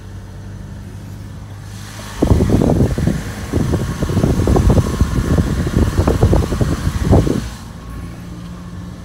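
Van engine running steadily at low speed. About two seconds in, loud irregular wind buffeting on the phone's microphone takes over for around five seconds, then the engine hum returns.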